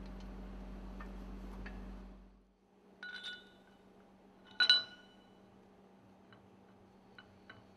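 A steady low hum cuts off a little over two seconds in. Then come two ringing metallic clinks, about a second and a half apart, the second the loudest, as a metal lifting bracket is set against the bottom of a large marine diesel engine's piston rod foot. A few faint ticks follow.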